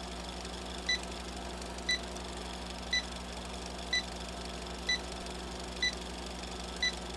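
Film-leader countdown beeps: a short high-pitched beep once a second, seven in all, over a steady low hum and hiss.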